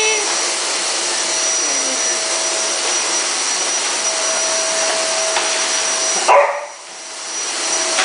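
Vacuum cleaner running with a steady whine while a dog bites at its floor nozzle and barks. A little after six seconds comes a sudden loud burst, then the vacuum's noise drops sharply and swells back up over about a second.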